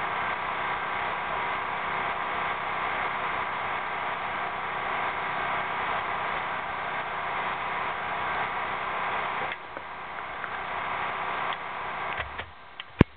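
A steady machine hum with noise, which drops off sharply about nine and a half seconds in. Near the end come a few metal clicks and one sharp clack as the facer is set into the HDPE pipe butt-fusion machine.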